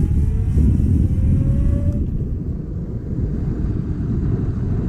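Vespa scooter riding along, heavy wind rumble on the camera microphone with the engine note rising in pitch over the first two seconds, then a steady rumble.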